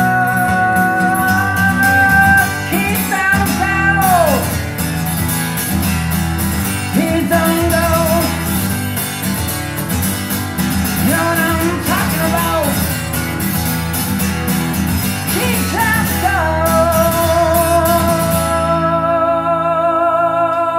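Song played back through Canton Ergo 90 DC loudspeakers: guitar over bass and drums, with bending notes. Near the end the drums drop out, leaving a long wavering note.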